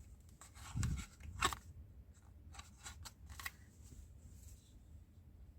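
Handling noise from the DJI OM 5 gimbal and its unboxing items: a scatter of light clicks and short rustles, with a soft thump about a second in and a sharper click just after.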